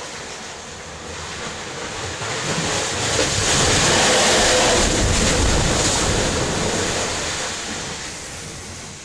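Sea waves surging into a rocky shoreline crevice: a rushing wash that swells about three seconds in, holds, then slowly drains away, with some wind on the microphone.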